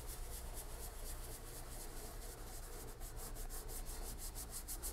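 Fingertips rubbing chalk pastel into sketchbook paper to blend it, a faint scratchy rubbing of quick repeated strokes.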